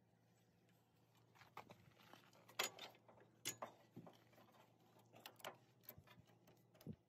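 Faint scattered clicks and knocks of hands handling metal hydraulic hose fittings on a compact tractor, starting about a second and a half in.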